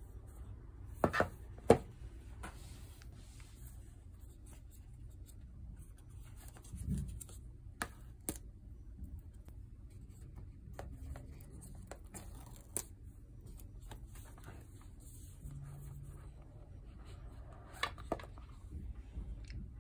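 Hands handling an iPhone 13 Pro's box: its paper pull-tab seals torn off, with a few sharp clicks and taps and cardboard rubbing. Near the end the lid is lifted off.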